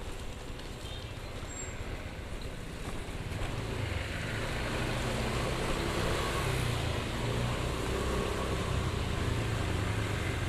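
Motorcycle engine running under way, with road and wind noise, getting louder about four seconds in.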